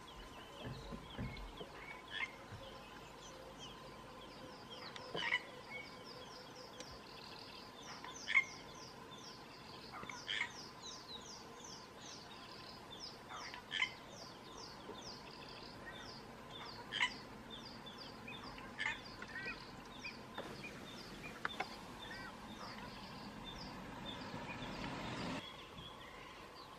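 Wild birds calling: a short, sharp call repeated every two to three seconds over a fast, continuous run of high, falling chirps.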